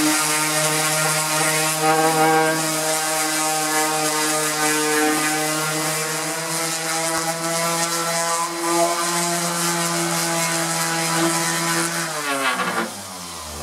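Electric hand sander with coarse-grit paper running steadily, rough-sanding old shellac off mahogany boards. Near the end it is switched off and its hum falls in pitch as it winds down.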